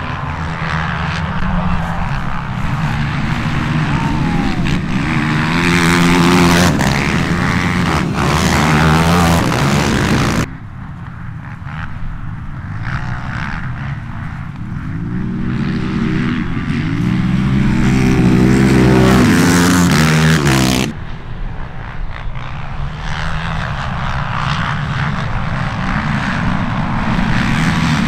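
Several racing ATV engines revving hard, pitch climbing and dropping repeatedly as the quads accelerate and shift. The sound jumps abruptly twice, about ten and twenty-one seconds in.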